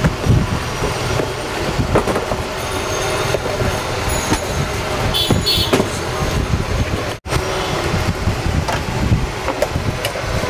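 Steady street traffic noise with scattered clatter and knocks, cut off sharply for an instant about seven seconds in.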